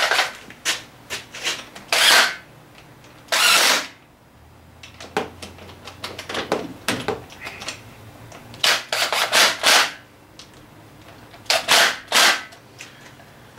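Sharp clicks and knocks of hand tools and metal parts being handled on an outboard motor, coming in irregular clusters, with a short noisy burst about three and a half seconds in.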